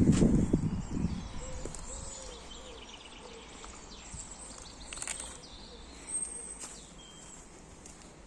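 Small birds chirping, short high calls scattered through a quiet outdoor background, with a low rumbling noise that fades out in the first second and a few sharp clicks about five and six and a half seconds in.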